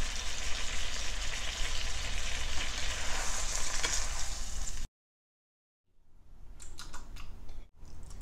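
Triggerfish fillets sizzling in hot oil in a frying pan as they are lifted out with a spatula. The sizzle cuts off suddenly about five seconds in, followed by a quieter stretch with a few light clicks.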